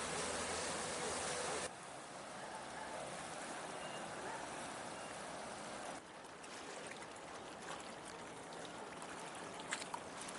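Steady rush of sea water and wind, with the outboard motor of a rescue inflatable running under it at first. The sound drops suddenly about two seconds in and again about six seconds in, and a few faint clicks come near the end.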